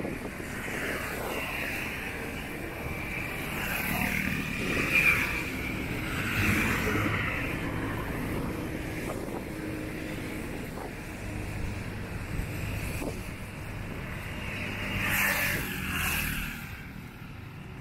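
Motorcycle and car traffic going by on a road: steady engine hum and tyre noise, swelling as vehicles pass close about four to seven seconds in and again about fifteen seconds in.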